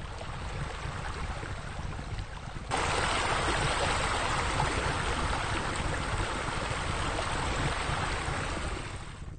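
Steady rushing water ambience, like a stream or waterfall, that jumps suddenly louder about three seconds in and fades away near the end.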